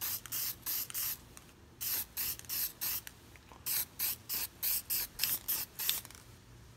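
Aerosol spray-paint can hissing out black paint in short puffs, about three a second, in three runs with brief pauses between them: light coats being laid on a clear RC truck body.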